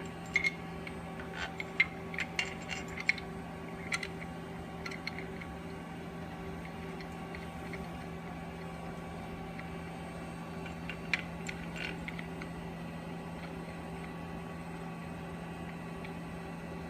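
Light clinks and taps of metal parts as a split ring is spun into place by hand on the glass assembly: a cluster of sharp clicks in the first five seconds and a few more a little past the middle. A steady low hum runs underneath.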